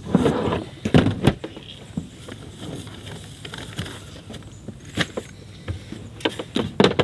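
Gear being handled in a minivan's open rear cargo area: scattered knocks and clicks over rustling, a cluster in the first second or so, then more near the end.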